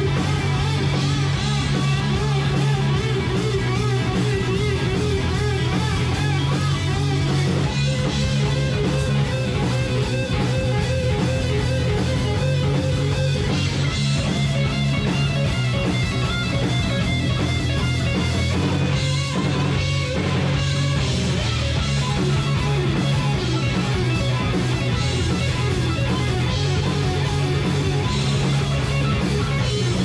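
Live heavy-metal band playing loud and steady: electric guitar over bass guitar and drums.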